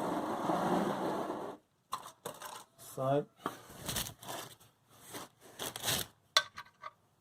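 A steady mechanical hum cuts off suddenly a second and a half in. It is followed by a run of short metallic clinks, knocks and scrapes as metal tools and parts are handled.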